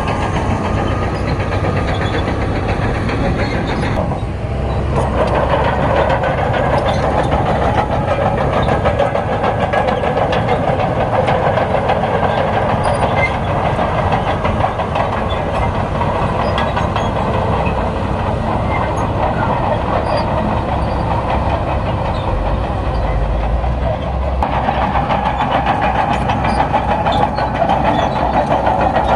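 Crawler bulldozer's diesel engine working under load, with the steady clatter of its steel tracks. The engine note strengthens about five seconds in, eases briefly near the end, then picks up again.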